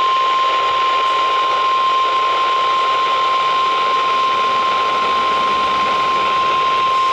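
NOAA Weather Radio warning alarm tone: one steady, unbroken high tone at about 1050 Hz, received over a radio with a constant hiss of static. It is the attention signal that announces a warning, here a severe thunderstorm warning.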